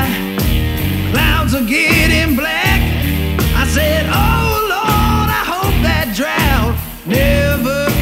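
Rock song with a sung vocal line over a steady beat.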